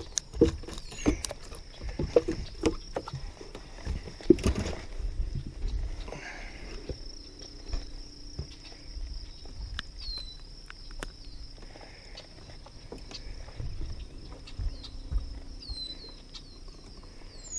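Outdoor ambience of a steady high insect drone, with short falling bird chirps now and then. A series of sharp knocks and clicks from handling comes in the first few seconds, the loudest about four seconds in.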